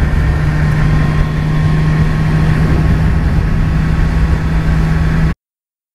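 BMW S1000R inline-four motorcycle engine running at a steady cruising speed, one even engine note over wind and road rush. The sound cuts off suddenly near the end.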